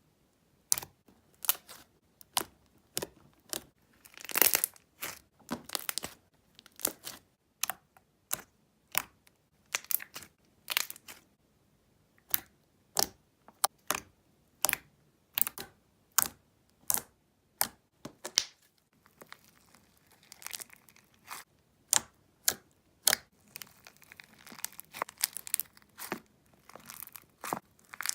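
Crunchy slime being poked and squeezed by hand, giving sharp crackling pops about one or two a second. In the last third the crackling turns softer and more continuous.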